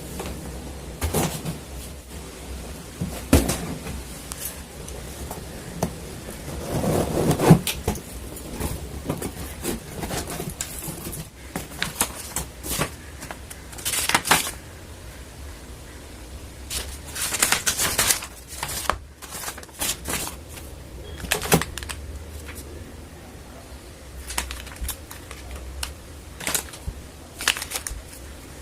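Packaging of an HP 1112 colour printer being handled during unboxing: scattered clicks and knocks with short bursts of rustling and scraping.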